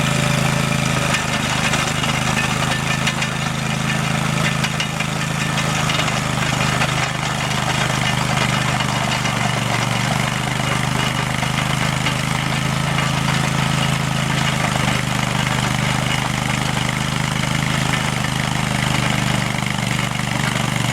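Vermeer RTX250 tracked walk-behind trencher's 27 horsepower Kohler EFI gasoline engine running steadily.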